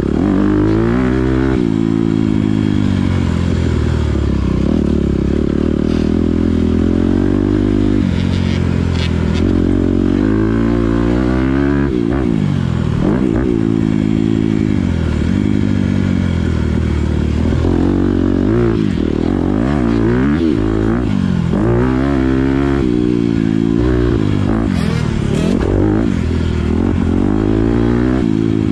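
Honda CRF250R single-cylinder four-stroke motocross bike ridden hard on a dirt track, heard from on board: the engine revs up and drops back again and again through gear changes and turns.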